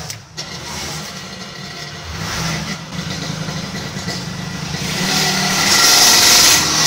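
A motor vehicle engine running steadily, growing louder over the last couple of seconds.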